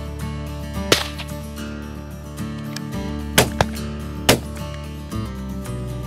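Background music with four sharp cracks: one about a second in, then three close together between three and a half and four and a half seconds in.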